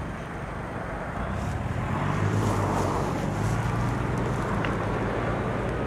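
A motor running steadily with a low hum and a haze of noise, growing a little louder about two seconds in.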